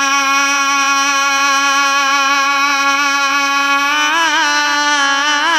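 Male naat reciter singing unaccompanied, holding one long steady note, then breaking into quick wavering ornamental turns about four seconds in.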